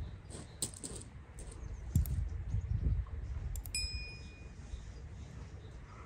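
Sound effect of a subscribe-button animation: a few mouse clicks, then a single bright bell ding a little past halfway that rings briefly and fades. Low rumbling background noise lies underneath.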